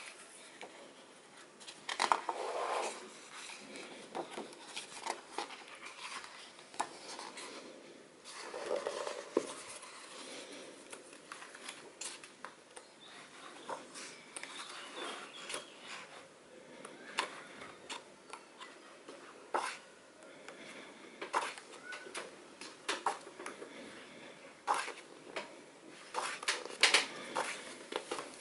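Pages of a glossy printed art catalogue being turned by hand, one after another: irregular paper rustles with sharper flicks and slaps as pages flip over and settle.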